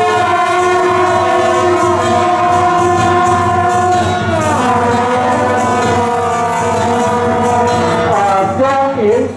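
Marching brass band playing long held chords, the notes changing about halfway through and again near the end.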